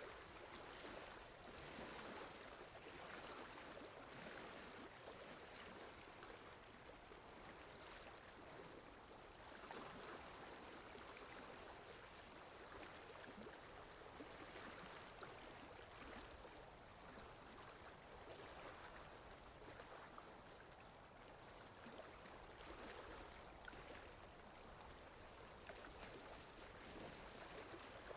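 Rain falling steadily: a faint, even hiss that swells and eases slightly every few seconds.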